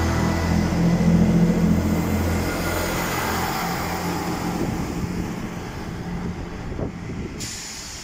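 Class 158 diesel multiple unit with Perkins engines pulling away under power, its underfloor engines loud and steady as the carriages pass close by, then fading as the train draws away.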